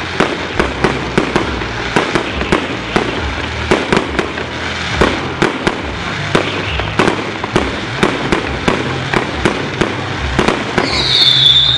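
Fireworks display: a rapid, irregular string of firework bangs and crackles, a few every second. Near the end a high, wavering whistle rises over them.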